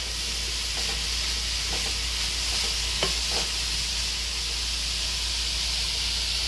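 Mushrooms and onion sizzling steadily in hot oil in a pan as they are stirred, with a few faint knocks of the utensil against the pan.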